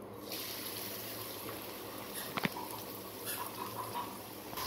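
Chopped red onions tipped into hot oil in a kadai, starting to sizzle about a third of a second in and sizzling steadily, with one short clink about halfway through.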